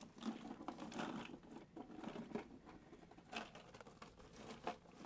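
Irregular rustling with small clicks and knocks from the camera being handled and repositioned over a cutting board.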